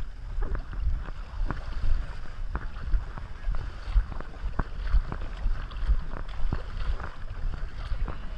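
Water sloshing and knocking against a GoPro housing strapped to a swimming dog's harness: sharp knocks about twice a second over a low rumble.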